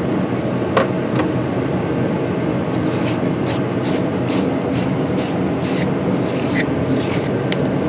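Wire battery terminal brush scrubbing a battery cable terminal clean of corrosion, in quick, even strokes about three a second from about three seconds in, after two light clicks, over a steady hum.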